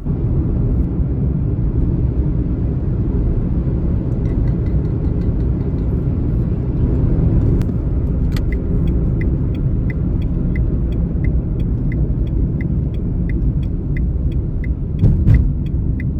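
Car driving, heard from inside the cabin: a steady low road and engine rumble. About halfway through a regular ticking starts, about two ticks a second, and a short thump comes near the end.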